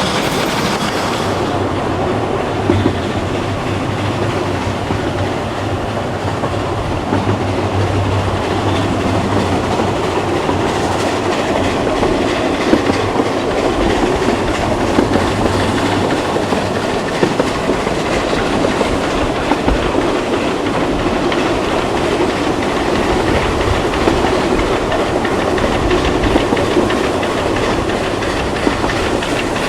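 A train running steadily on rails, with the clickety-clack of wheels over rail joints and a continuous rumble.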